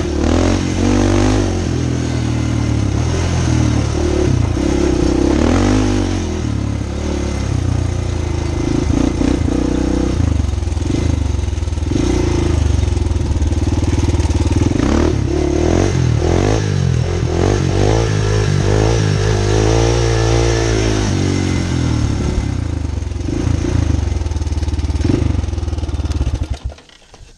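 Honda 400EX quad's single-cylinder four-stroke engine under way, revving up and down as it is ridden. Near the end the engine sound drops away abruptly.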